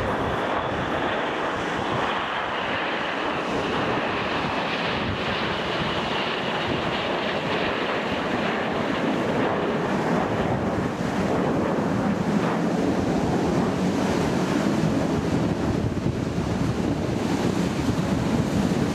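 Formation of RAF Hawk T1 jets with Adour turbofan engines flying past: a continuous rushing jet noise with a faint high whine that slowly falls in pitch over the first several seconds. A deeper rumble grows stronger from about eleven seconds in. Wind buffets the microphone throughout.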